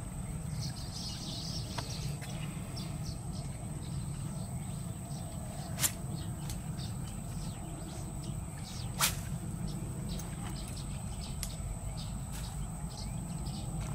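Outdoor pondside ambience: a low steady rumble, a thin steady high whine, many short high chirps scattered throughout, and two sharp clicks, about six and nine seconds in.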